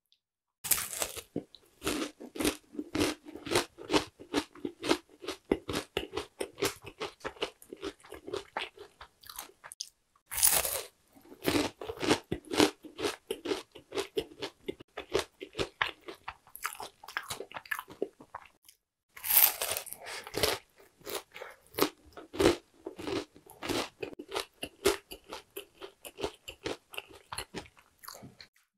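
Crisp bites and crunchy chewing of oranda, a Korean snack of small puffed grain bits bound in sticky caramel syrup. Three hard bites stand out, about a second in, about ten seconds in and about nineteen seconds in, each followed by a long run of rapid crunching as the pieces are chewed.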